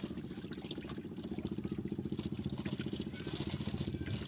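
An engine running steadily: a low hum with a rapid, even beat.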